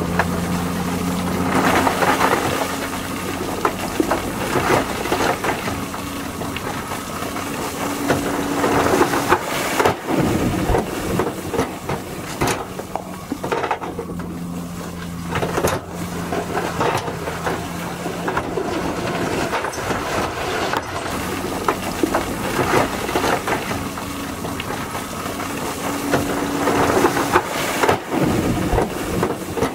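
Heavy dump trucks' diesel engines running while loads of stone slide out of their tipped beds, rocks clattering and crashing onto the pile throughout.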